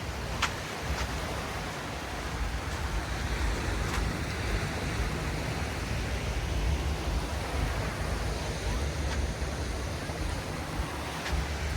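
Steady wash of sea surf with wind rumbling on the microphone.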